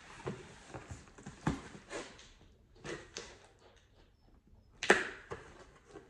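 Packaging handled by hand as a box is opened: irregular rustles, scrapes and light knocks of paper and cardboard, with a louder, sharper rustle about five seconds in.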